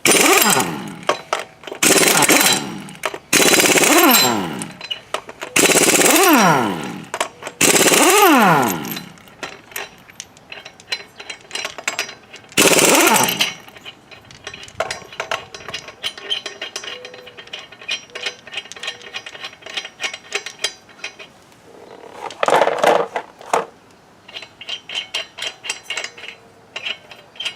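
Impact wrench hammering in about seven short bursts, each ending in a falling whine as the motor spins down, breaking loose the tight lug nuts on a pickup's front wheel. Lighter rattling ticks come between the later bursts.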